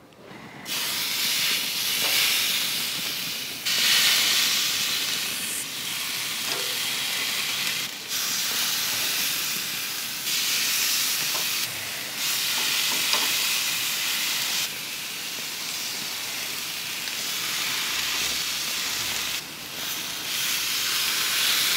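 Marinated chicken thighs sizzling on the hot grates of a gas grill: a steady hiss that steps up and down in level every few seconds.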